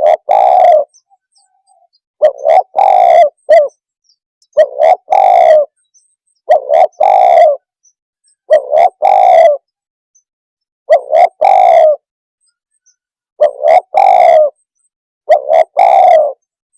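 Spotted dove (tekukur) cooing: a phrase of two or three short coos ending in a longer, drawn-out coo, repeated about every two seconds, eight times.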